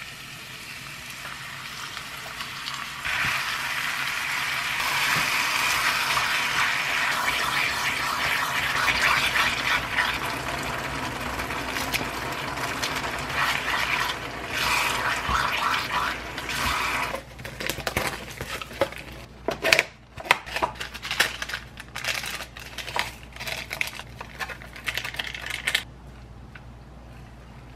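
Spicy sauced meat and sliced onion sizzling in a frying pan on an induction hob, stirred with a silicone spatula, a steady frying hiss that builds over the first few seconds. It gives way to a run of irregular sharp clicks and rattles, then falls quiet near the end.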